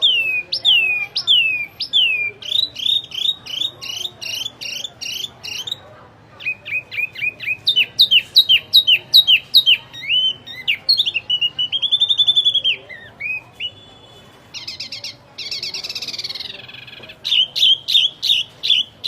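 A wambi songbird singing energetically in rapid runs of sharp down-slurred whistles. About halfway through it gives a longer rising-and-falling whistle, and near the end a harsh buzzy phrase before the whistle series resumes.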